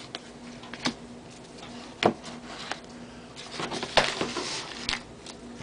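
Trading cards being handled and sorted into piles, with a few sharp clicks and taps as cards are set down and squared on a table, two of them louder than the rest, over a faint steady hum.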